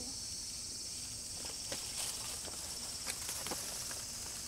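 Summer insects droning steadily at a high pitch, with a few faint, light clicks.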